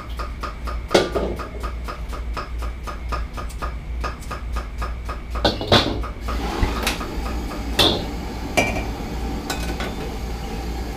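A rapid, regular ticking for about six seconds, then a gas wok burner running with a steady rush. A steel wok clanks against the burner a few times as it is set down and moved.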